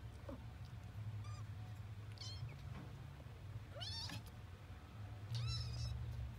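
Kittens mewing: about four short, high-pitched mews spaced roughly a second apart, the loudest about four seconds in, over a low steady hum.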